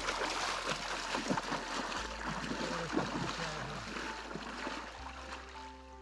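Splashing footsteps of someone wading through shallow river water in waders, a run of irregular splashes that fades as the wader moves off. Background music comes in near the end.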